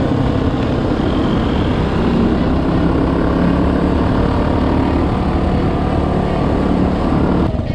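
Dirt bike engine running steadily at cruising speed on a gravel road, heard close up from the bike itself. The sound drops off abruptly near the end.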